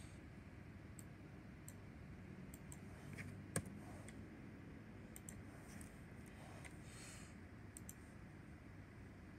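Faint, scattered clicks from a laptop being worked in an animation program, over a low steady room hum; one sharper click about three and a half seconds in.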